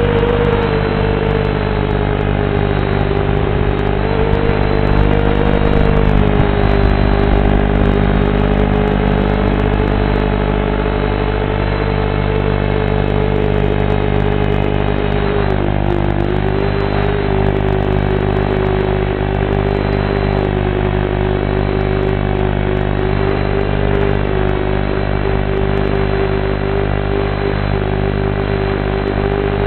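FPV drone's motors and propellers whining, picked up by the video transmitter's built-in microphone. The pitch drifts up and down with throttle through the flight, over a steady lower hum, and the sound is thin and band-limited.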